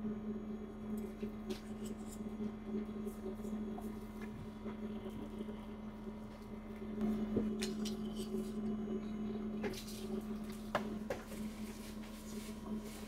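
A steady low appliance hum, with scattered light clicks and knocks over it; the sharpest knock comes about eleven seconds in.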